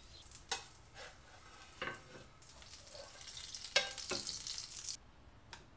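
A crepe frying in a pan with a soft, high sizzle, and a few sharp taps of a spatula against the pan. The sizzle stops suddenly near the end.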